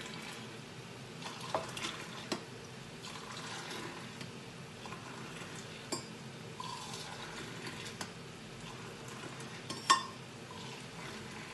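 Milk tea being pulled, poured back and forth between two stainless steel tumblers to cool and froth it. The pouring makes a steady splash, and the metal cups clink against each other a few times, loudest about ten seconds in.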